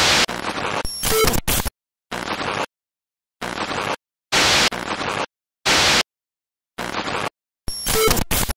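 Bursts of radio-like static, about nine of them, each starting and stopping abruptly with dead silence between. A short electronic beeping is mixed into the static about a second in and again near the end.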